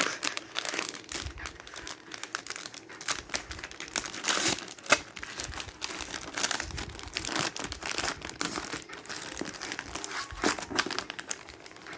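Plastic packaging crinkling and rustling with irregular crackles as a bag of Pokémon mini booster packs is opened and handled.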